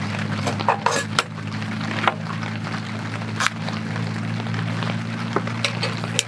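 Metal clicks and light knocks of a hurricane oil lantern being handled on a wooden slatted table, with a long lighter clicked at the wick to light it. A steady low hum runs underneath.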